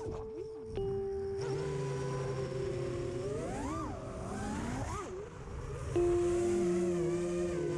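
Electric motors of an FPV racing quadcopter whining, their pitch sweeping up and down with the throttle, the biggest swing about halfway through, under background music of long held notes that change about a second in and again near the end.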